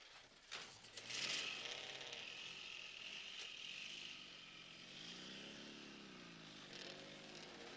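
Vehicle engines running as a car pulls away, with an engine note rising and falling around the middle and again near the end, under a steady high-pitched hiss that starts about a second in.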